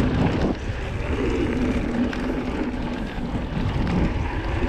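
Specialized Stumpjumper mountain bike rolling fast over a sandy dirt trail: a continuous rumble and rattle from the tyres and frame, mixed with wind rushing over the camera's microphone.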